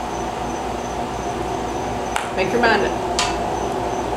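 Two sharp clicks, about two and three seconds in, with a short voiced sound between them, over a steady low hum and a repeating high chirp.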